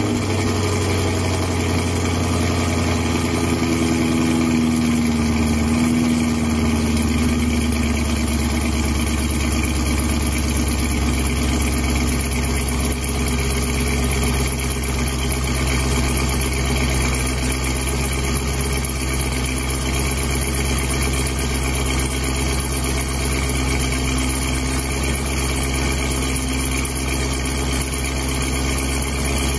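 Chevrolet Camaro engine idling through its quad exhaust just after a cold start. The idle drops a little over the first several seconds, then holds steady.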